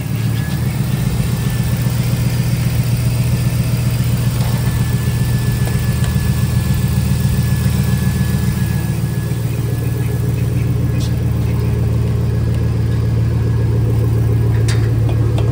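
2006 Chevrolet Silverado's freshly installed 5.3-litre V8 idling steadily.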